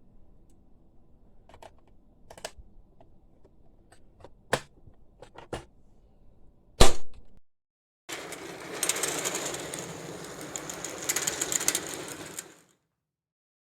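Domestic sewing machine, its thread tangle just cleared, stitching in one run of about four and a half seconds with a fast, even rattle, then stopping abruptly. Before it come scattered clicks and one loud knock from handling the machine.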